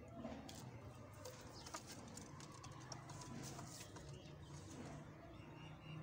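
Dobaz pigeons cooing softly, with scattered faint clicks.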